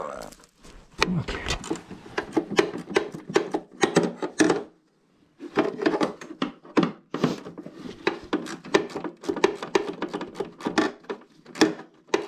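Hand ratchet clicking in fast runs as nuts are backed off, with a short pause about five seconds in.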